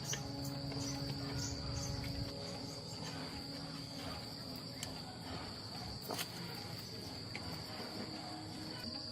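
Insects trilling steadily at one high pitch, with a low rumble in the first couple of seconds and a few faint scattered clicks and knocks.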